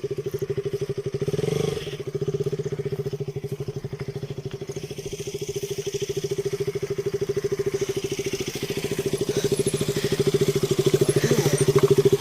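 Motorcycle engine running steadily at low speed, an even rapid chugging that grows a little louder toward the end.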